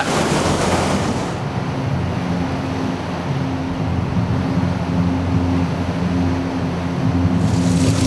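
Motor boat underway: the engine's steady low hum under the rush of water along the hull, with wind on the microphone.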